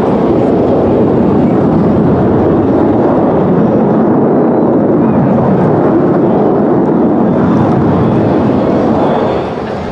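Jet aircraft passing overhead: a loud, steady rushing roar that eases off about nine seconds in.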